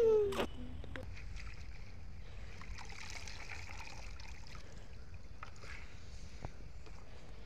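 A puppy gives a short, high falling whimper at the very start. After it comes a faint, steady background with light rustling and ticking, as leafy greens are handled in plastic bowls.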